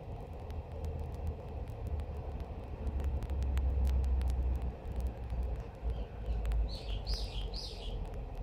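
Outdoor ambience: a steady low rumble, loudest in the middle, with a bird giving three quick falling chirps near the end.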